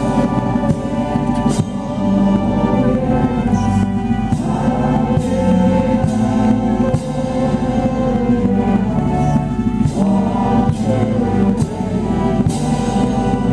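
A congregation singing a hymn together in slow, held notes.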